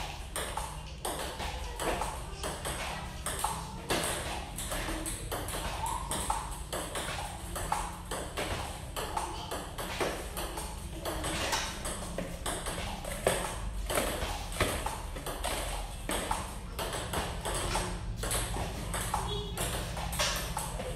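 Table tennis ball struck back and forth in a steady training rally, a quick regular run of sharp clicks as it hits the paddles and bounces on the table, several a second.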